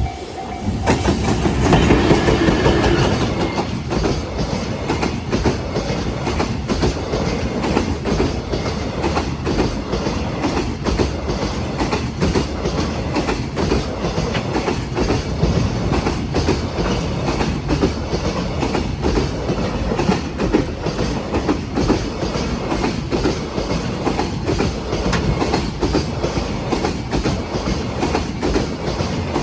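Freight train rolling past close by, its wagons' wheels clattering over the rail joints in a rapid, even clickety-clack, loudest about two seconds in. A level-crossing bell rings for the first second, then stops.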